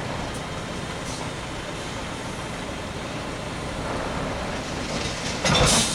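MAN TGA 18.530 truck's diesel engine running steadily, with a short, loud hiss near the end.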